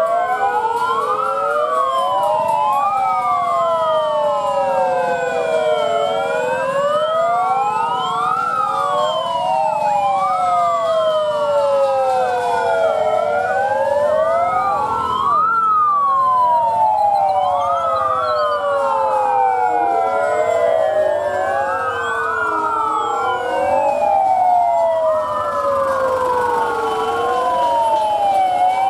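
Several police sirens wailing together, each rising and falling about every two seconds and out of step with the others, so the wails overlap.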